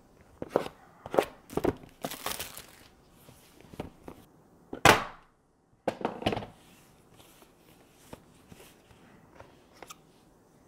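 A camera's cardboard box and packaging being opened and handled, with knocks, tearing and crinkling, and one loud swish about five seconds in. In the second half it thins out to faint clicks.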